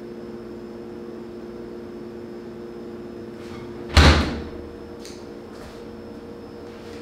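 Refrigerator door shut hard with a single loud slam about four seconds in, over a steady hum.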